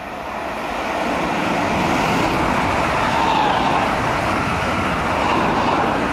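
Electric multiple unit passing through the station at speed: the rumble and whine of the train grow louder over the first two seconds, then hold steady as the carriages go by.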